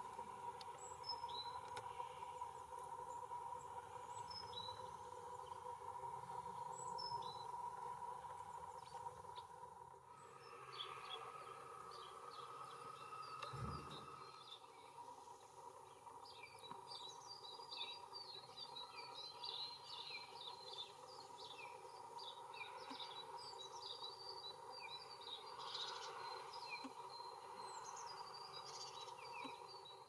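Wild songbirds: a few short high chirps, then from about halfway a small bird singing a fast run of high twittering notes. Under them runs a steady faint whine from the camera's optical image stabiliser.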